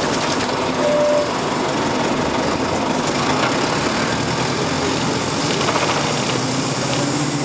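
Nova Bus RTS city bus with a Detroit Diesel Series 50 engine running steadily under way, heard from aboard the bus as continuous engine and road noise. A brief high tone sounds about a second in.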